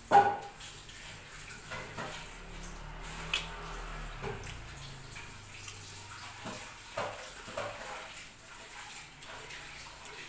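Wet chewing and lip-smacking while eating saucy duck adobo by hand, with scattered short smacks and clicks. A sharp knock just after the start is the loudest sound.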